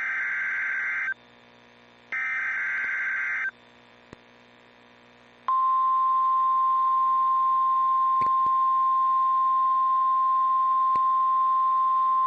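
Emergency Alert System SAME header, the last two of its three bursts of buzzing digital data. About five and a half seconds in, a steady single-pitch alarm tone begins: the NOAA Weather Radio warning alarm, here announcing a tornado warning.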